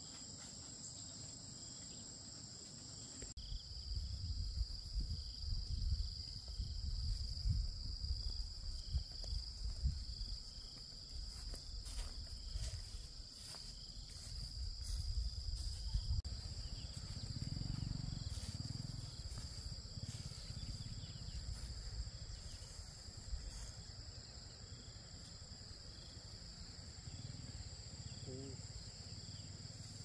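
A steady, high, continuous insect chorus with a faint repeating chirp beneath it. A low, uneven rumble comes in a few seconds in and fades after about the middle.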